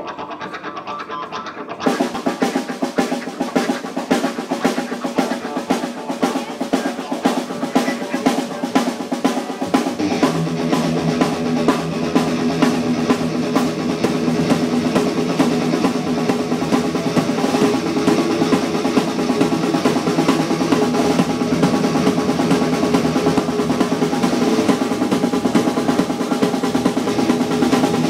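Live rock band playing an instrumental intro on electric guitar, bass and drum kit. The drums come in about two seconds in with rapid, steady snare hits, and the sound fills out with lower notes about ten seconds in.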